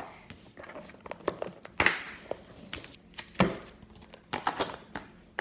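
Irregular clicks, knocks and brief rustles of plastic slime containers and their lids being handled and closed, with a cluster of quick taps near the end.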